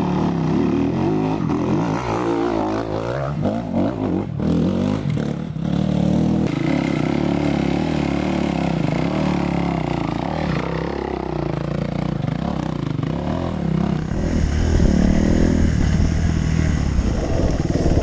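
Enduro dirt bike engines revving up and down again and again. About 14 seconds in it changes to one steadier, slightly louder dirt bike engine running under the rider.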